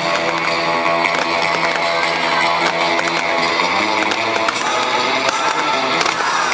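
Rock music with strummed guitar played over a stadium PA, with a steady beat.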